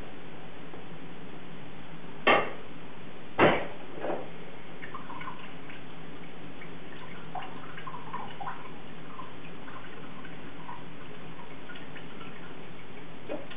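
Two loud metal knocks about a second apart, with a smaller one just after. Then strained veal stock drips and trickles from a conical chinois strainer into a fat separator, with light clinks of metal on the strainer.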